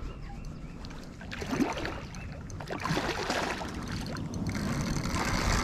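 Water sloshing and splashing unevenly as someone wades through a shallow river, getting louder toward the end.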